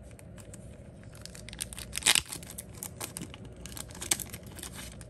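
Thin clear plastic bag rustling and crackling as it is handled and opened to get a game card out. The loudest crackles come about two seconds in and again about four seconds in.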